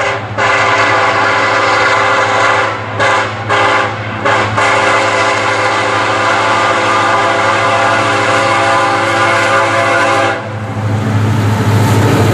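Diesel freight locomotive's air horn sounding a chord: a long blast, two short ones, then a long held blast that cuts off about ten seconds in. Under it and after it comes the steady rumble of the train running past.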